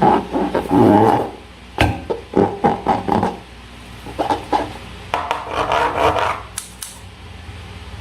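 Hands working slime: runs of short squishing, rubbing sounds, with a sharp click about two seconds in. A second run of squishing comes about five seconds in, followed by a couple of clicks.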